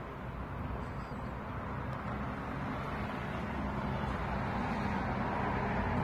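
Steady outdoor background noise: a low rumble and hiss with no calls or other distinct sounds.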